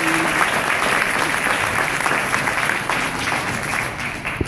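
Audience applauding: dense clapping from many hands, which starts to thin out and die down near the end.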